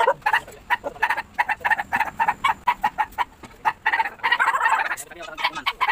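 Chickens clucking in a rapid, irregular series of short calls, with a denser run of cackling about four seconds in.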